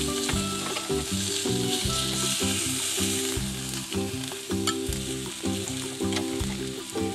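Vegetables sizzling on the Starfrit Rock smokeless indoor grill's ridged grill plate, a steady hiss, with a few light clicks of metal tongs as pieces are moved.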